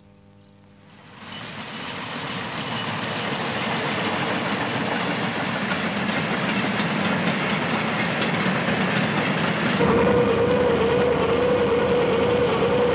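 Freight train passing close at speed, a loud steady rush of wheel and wagon noise that comes up about a second in. About ten seconds in, trench-digging machinery takes over with a steady, slightly wavering whine.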